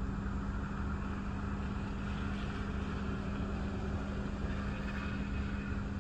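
Gusty thunderstorm outflow wind rushing past and buffeting the microphone with a deep, uneven rumble. A steady low hum from the car runs underneath.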